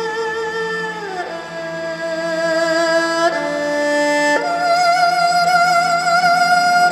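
Erhu (Chinese two-string fiddle) playing long bowed notes: a held note slides downward about a second in, then the line steps up to a higher note held with a wavering vibrato from about four and a half seconds.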